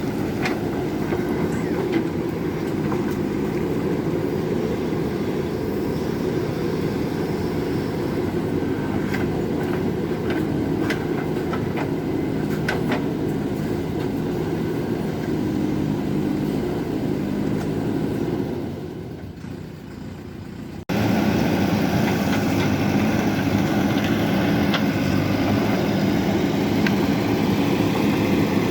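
Excavator's diesel engine running steadily under work, with scattered sharp clicks and knocks. About two-thirds of the way in, the sound dips lower, then cuts back in suddenly and louder.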